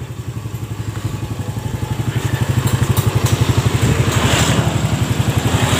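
Yamaha Vega ZR's single-cylinder four-stroke engine idling with an even, rapid putter, growing louder over the first few seconds.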